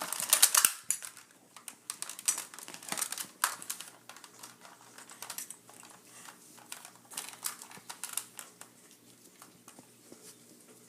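Irregular plastic clicks and rattles of a toy Nerf blaster being reloaded with foam darts. The clicks are thickest in the first second and thin out after about eight seconds.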